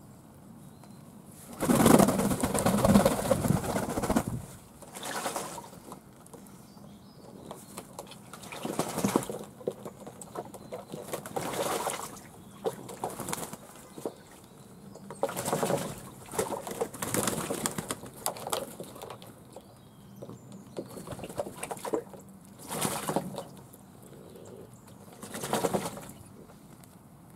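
Fantail doves cooing, with repeated bursts of wing flapping every second or two as they bathe; the loudest and longest flurry comes about two seconds in.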